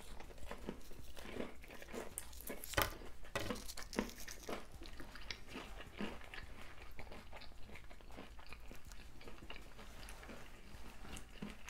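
Close-up chewing of fried, hot Cheeto–crusted food: a run of crisp crunches, the sharpest about three seconds in, then softer chewing and small crackles.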